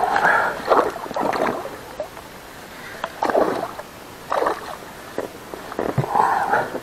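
A hooked pike thrashing and splashing at the water's surface right beside an inflatable boat. The splashes come in irregular bursts, heaviest in the first second and a half and again near the end.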